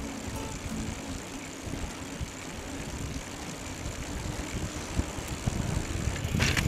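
Riding noise from an HP Velotechnik Scorpion recumbent trike on a rough lane: steady tyre rumble and wind buffeting the camera microphone. A short louder burst of clatter comes near the end.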